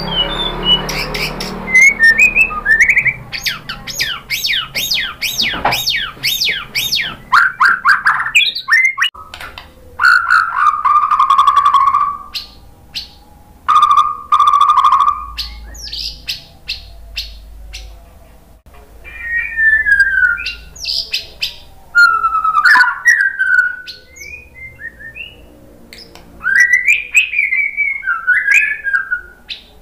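White-rumped shama singing a varied song in loud phrases with short pauses between them. Fast runs of repeated notes come first, then clear whistled phrases, some sliding downward.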